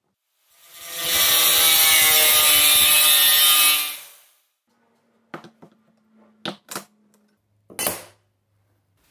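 Angle grinder with a thin cutting disc cutting through sheet metal for about three seconds, running up and then winding down. After it come several short sharp snaps, typical of hand snips cutting sheet metal.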